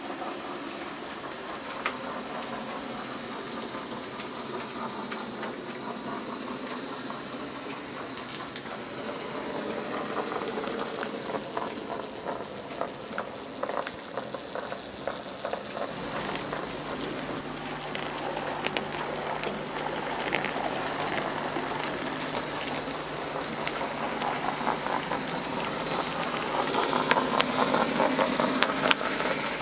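OO gauge model trains running on the layout's track: the clicking and rattling of small wheels over rail joints, with a steady motor hum from about halfway, growing louder near the end as wagons and a brake van pass close by.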